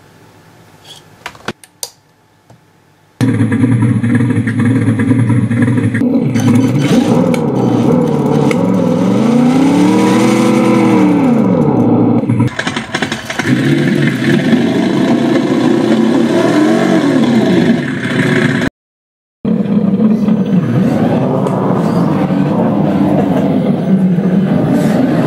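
An engine starting after a few clicks and then running loud, its pitch rising and falling as it is revved.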